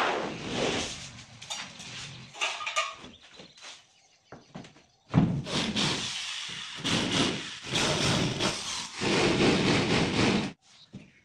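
Wooden knocks and scrapes as a large plywood sheet is shifted, then from about five seconds in an electric hand drill boring into plywood in three long runs with short breaks.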